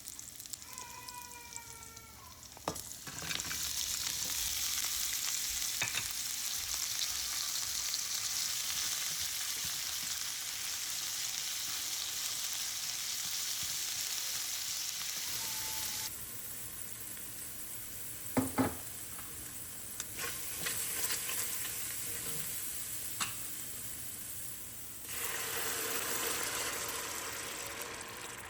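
Food sizzling in a frying pan while it is stirred, with a few sharp knocks of a utensil against the pan about two-thirds of the way through.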